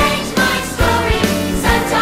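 Music with a beat and singing.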